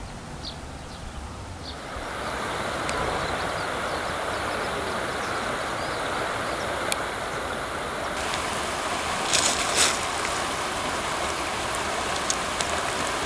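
Shallow river water running over stones in a riffle, a steady rushing that sets in about two seconds in, with a brief louder burst about two-thirds of the way through.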